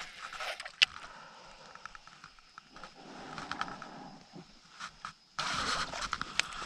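Fishing tackle being handled in a small boat: scattered sharp clicks and knocks, the sharpest about a second in. Then, about five and a half seconds in, a louder rushing noise with fast ticks starts suddenly.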